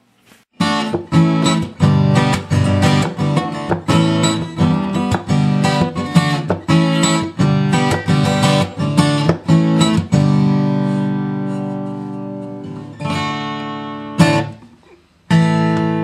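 Acoustic guitar strummed in a quick, steady rhythm, then a chord left to ring out and fade for a few seconds before the strumming starts again near the end.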